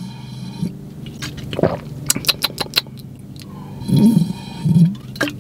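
Drinking from a plastic shaker bottle: sips and clicks, then two loud gulps about four and five seconds in, over a steady low hum in a car's cabin.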